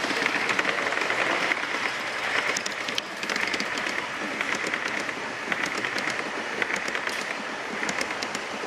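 G gauge model train rolling past, its long passenger cars running close by on the track: a steady rushing rumble of wheels on rail with scattered sharp clicks, swelling and easing about once a second.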